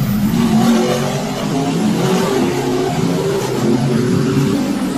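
Race car engines revving, their pitch stepping up and down over a steady hiss.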